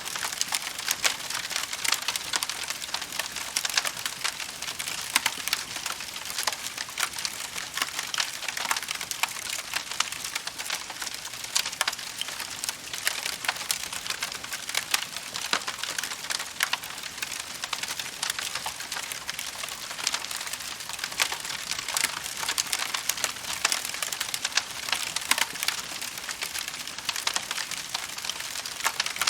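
Wood fire crackling steadily, dense with small sharp pops and snaps at irregular times over a constant hiss.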